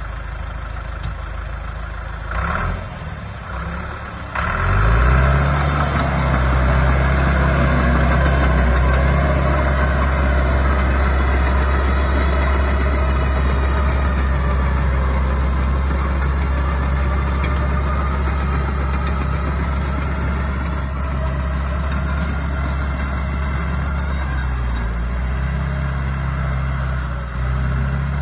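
2002 John Deere 650H LT crawler dozer's diesel engine running. About four seconds in it picks up to a higher, louder steady speed as the dozer drives off, and it holds there with a brief dip near the end.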